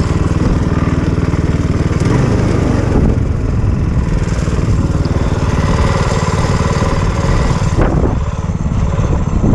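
Go-kart's small gasoline engine running steadily under way, with wind noise on the onboard microphone.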